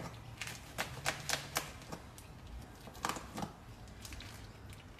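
A knife clicking and tapping against the plastic packaging of a pack of lamb backstrap on a chopping board as the pack is slit open: light scattered clicks, a quick run of them in the first two seconds and two more just after three seconds in.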